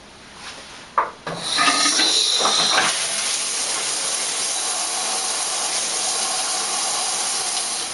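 A click about a second in, then water from a newly fitted 2 gallon-per-minute low-flow shower head comes on with a rush and sprays as a steady hiss.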